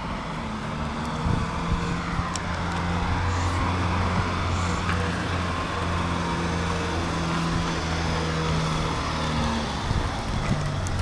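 1983 Volkswagen Golf Mk1 engine running at low, steady revs as the car drives slowly up, its sound growing gradually louder as it approaches.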